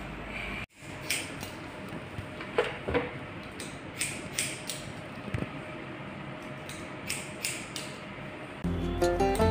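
An electric hair clipper buzzing, cut off abruptly under a second in; then barber's scissors snipping hair in short, irregular clicks. Music comes in near the end, louder than the snipping.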